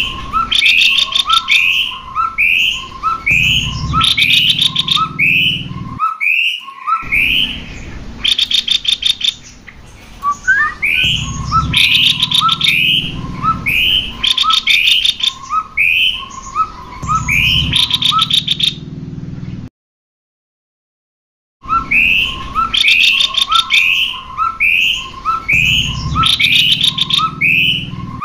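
Cucak kopi birds singing: a fast, repeated run of short rising whistled notes, interlaced with quick rattling trills, which breaks off for about two seconds about two-thirds through and then resumes.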